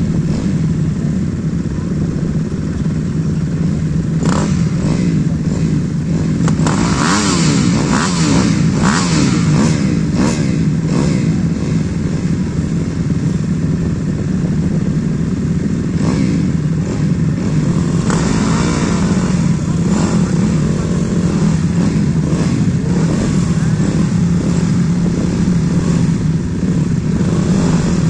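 Several dirt bike engines running together at a start line, idling steadily with throttle blips that rise and fall in pitch now and then, most often in the first half and again past the middle.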